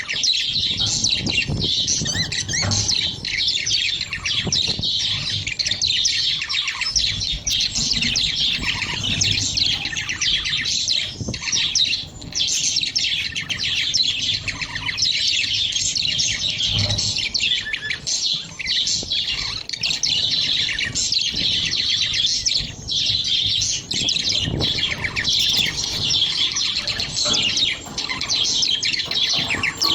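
Budgerigars chattering without a break, a dense high twittering.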